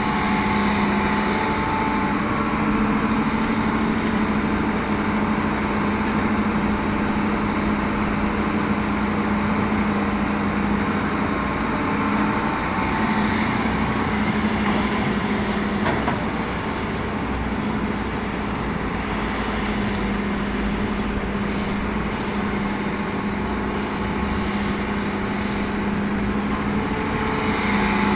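Hitachi excavator's diesel engine running steadily under work, with a constant hum, easing off briefly a little past halfway and picking up again near the end.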